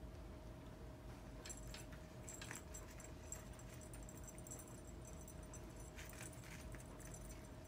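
Faint tinkling of a small jingle bell on a cat toy, in short jingling bursts: a few in the first half and another cluster about six seconds in, as a kitten bats at the toy.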